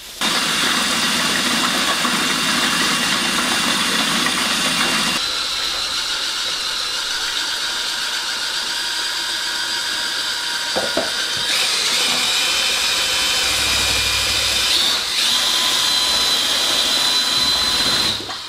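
Electric drill with a paddle mixer running steadily, stirring watered-down paint in a bucket; the motor's whine shifts in pitch a couple of times.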